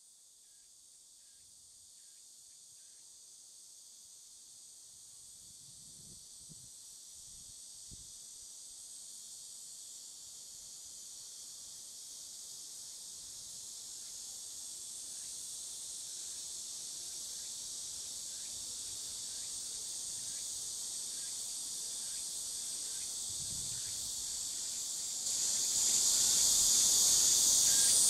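Cicada chorus: a steady, high-pitched buzz that swells gradually louder, then steps up sharply a few seconds before the end.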